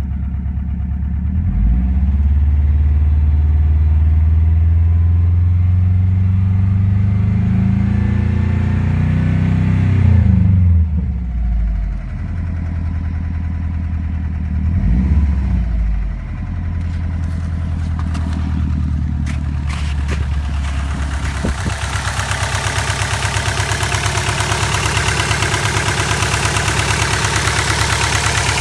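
A vehicle engine is revved up slowly and let fall back, then revved briefly a second time. From about two-thirds of the way through, it settles into running with a fast, even rattle over the engine note. This is the bad noise that the owner is showing.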